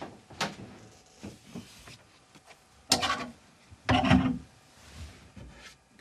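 Someone rummaging through belongings in a room: a string of knocks, rubs and bumps, like drawers and furniture being handled. The loudest two come about three and four seconds in.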